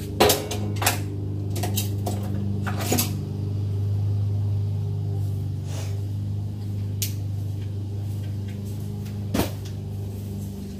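Sharp metal clicks and clinks of needle-nose pliers working a dishwasher door spring, about six in all with the loudest near the start and about nine seconds in, over a steady low hum.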